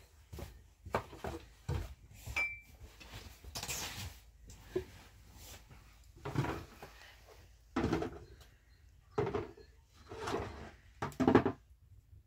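A series of irregular knocks, clatters and scrapes of objects being handled, about a dozen short sounds spread unevenly, the loudest near the end.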